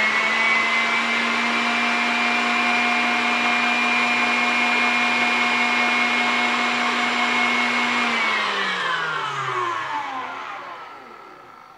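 KitchenAid stand mixer's motor running at high speed, its wire whisk beating heavy cream that is nearly at stiff peaks, with a steady whine. About eight seconds in, the whine falls in pitch and fades as the mixer is switched off and winds down.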